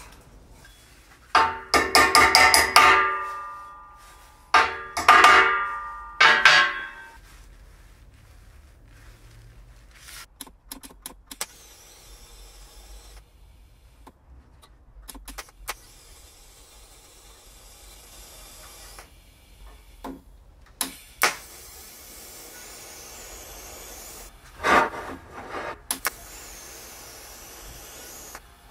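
Steel workpieces being struck or knocked together, clanging with a ringing tone that dies away over about a second. There are three bursts of strikes in the first seven seconds, then scattered quieter clanks and taps.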